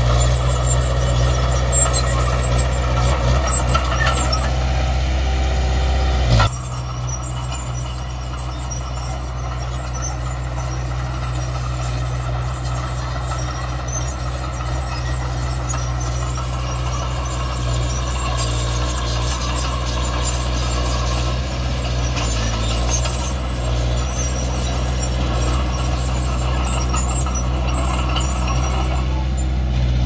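Komatsu D20P bulldozer's diesel engine running steadily under work. About six seconds in the sound drops abruptly to a duller, slightly quieter run.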